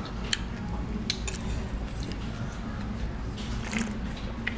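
Eating sounds: wet chewing of food with a few scattered sharp clicks, over a steady low hum.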